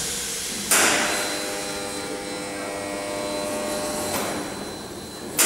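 A sharp metallic clang about a second in that rings on for around three seconds, then a weaker knock near the end, echoing in a large workshop hall. A faint steady high whine runs underneath.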